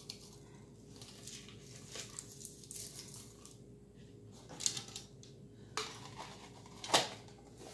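A fork and takeout food containers being handled: scattered light clicks, taps and rustling, with one sharper click near the end.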